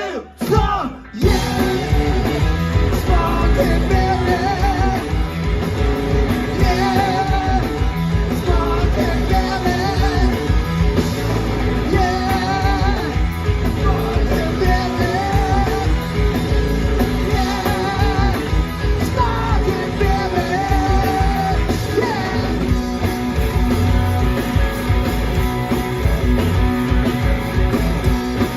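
Rock song with singing over electric guitar, bass and drums, with a brief break about a second in.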